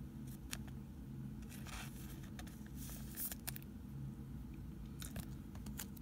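Faint rustling and light ticks of trading cards and plastic card sleeves being handled, scattered over a few seconds above a low steady hum.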